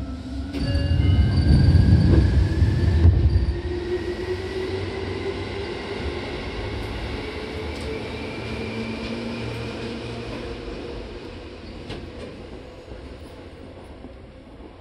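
Seibu 6000 series electric train's Hitachi GTO-VVVF inverter and traction motors accelerating: whining tones that climb steadily in pitch as the train gathers speed, over heavy wheel and rail rumble that is loudest in the first few seconds and eases off toward the end.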